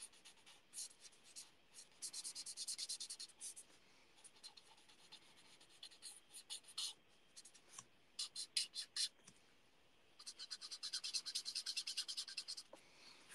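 Stampin' Blends alcohol marker nib scratching over card in quick short colouring strokes, faint: one run of rapid strokes about two seconds in, another about ten seconds in, and scattered single strokes between.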